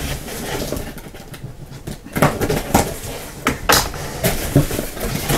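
A cardboard box being opened by hand: flaps and tape rustling and scraping, with several short knocks and clicks of the cardboard in the second half.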